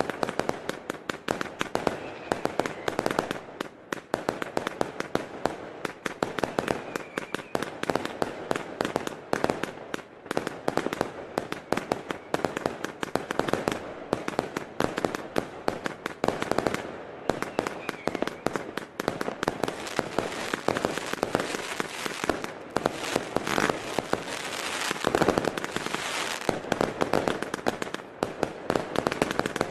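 Magnum 400 Shots Mega Display Box, a 400-shot firework compound cake, firing: a dense, unbroken stream of shots and bursts, many a second, loudest about 25 seconds in.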